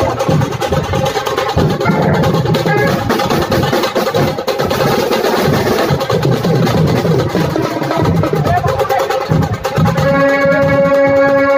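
Dhol tasha ensemble playing: large dhol barrel drums beating in a dense, steady rhythm with tasha kettle drums rattling over them under thin sticks. A held pitched tone joins about ten seconds in.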